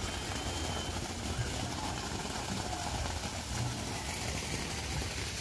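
Small stone garden waterfall, a sheet of water pouring steadily into a shallow pool and splashing: a continuous even rush of water with a low rumble underneath.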